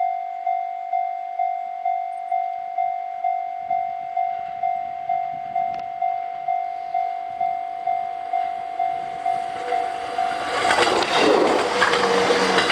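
Japanese level-crossing alarm bell ringing a steady ding about twice a second. From about ten seconds in, a train passes the crossing with a loud rush of wheels on rail that drowns the bell.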